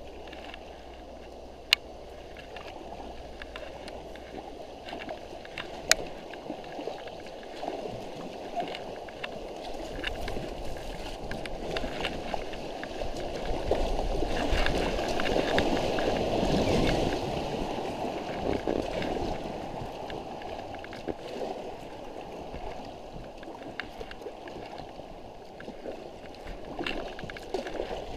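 Stream water running past an inflatable packraft, swelling louder as the raft passes through a riffle about halfway through, then easing off. Two sharp clicks come in the first six seconds.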